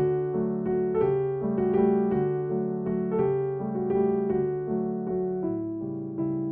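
Background piano music: a gentle melody over chords, notes changing every fraction of a second.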